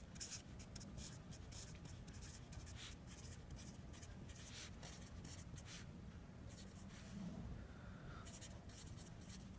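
Felt-tip marker writing on paper: a run of many short, faint strokes as letters are written out.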